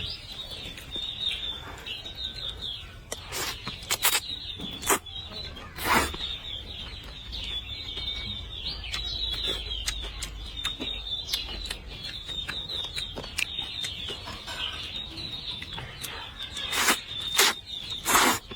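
Small birds chirping continuously, with a dozen or so sharp clicks and knocks, several close together near the end.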